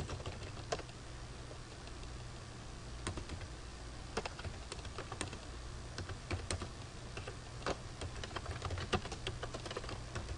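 Typing on a computer keyboard: irregular key clicks, some in quick runs, as a username and password are entered, over a steady low hum.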